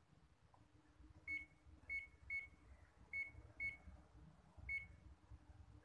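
Ricoh 2051 copier's touch-panel key beep: six short, high beeps at the same pitch, irregularly spaced, one for each tap of the scroll-down button on the operation panel.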